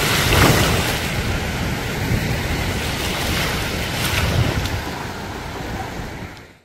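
Small sea waves washing in the shallows, a steady rushing of water, with wind buffeting the microphone in low rumbles; it fades out near the end.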